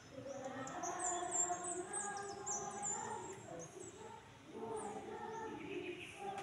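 A large group of students singing together in long held notes, with birds chirping in a quick run of high, short notes over the top, mostly in the first half.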